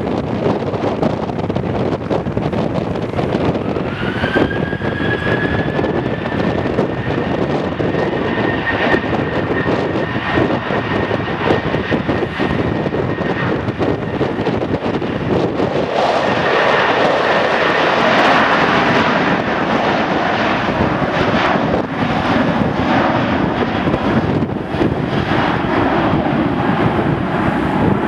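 Boeing 737 jet engines spooling up with a rising whine about four seconds in that then holds steady, the engines stabilising before takeoff power. About halfway through they grow louder and fuller as takeoff thrust is set and the jet begins its roll, with wind buffeting the microphone throughout.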